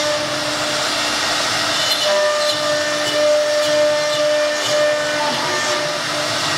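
6 kW spindle of a 1325 CNC router running with a steady whine while the bit cuts MDF board, over a dense hiss of cutting.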